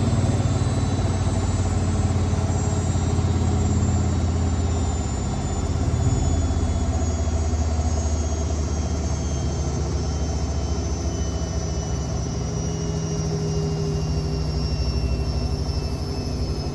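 Hotpoint WML540 Aquarius washing machine running its final spin with the door open, the drum slowing down: a steady low hum with a high motor whine that falls slowly in pitch.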